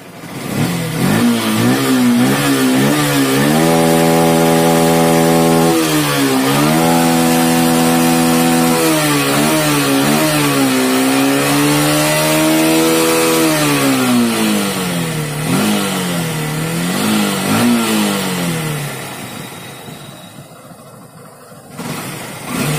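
Yamaha Fazer motorcycle's single-cylinder engine being revved in neutral on a test run after a freshly fitted clutch and pressure plate. The revs rise and are held high several times, with quick blips in between. About three-quarters through it drops to a low idle, then is revved again at the very end.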